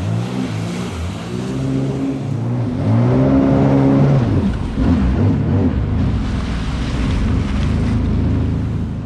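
2021 Sea-Doo Spark Trixx personal watercraft engine revving as it accelerates across the water, its pitch climbing for about three seconds and then dropping back. It then runs at a steadier speed, with water rushing beneath it.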